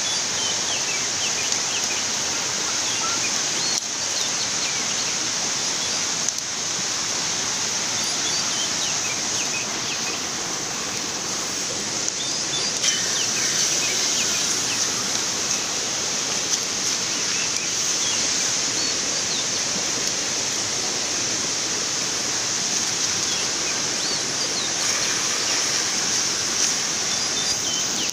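Steady high-pitched hiss of forest insects with scattered bird chirps, and a few faint knocks.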